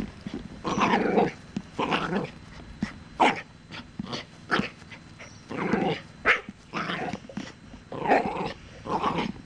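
Cockatoo mimicking a dog's bark, giving a run of barks about once a second, some short and sharp and some drawn out.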